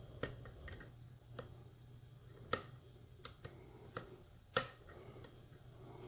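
Irregular light clicks of a lock pick working the pins of a pin-tumbler challenge lock, pins clicking as they set against spool security pins, over a low steady hum.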